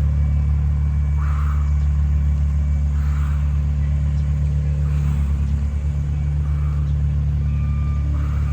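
A steady low rumble like a running engine, with short breathy exhales every couple of seconds during ab crunches.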